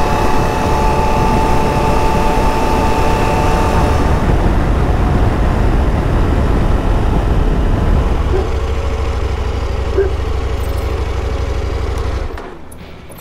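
KTM 890 adventure motorcycle running steadily at road speed, engine drone mixed with wind noise; it cuts off suddenly about twelve seconds in.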